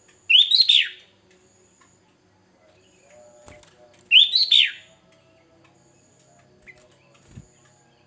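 Sooty-headed bulbul (kutilang) singing two short, loud whistled phrases about four seconds apart, each rising and then sliding down in pitch. A couple of faint knocks fall between and after them.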